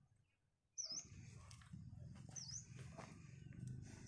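A bird repeating a short, high chirp that dips and then rises in pitch, three times about a second and a half apart, over a faint low rumble. The first chirp comes about a second in, after a moment of near silence.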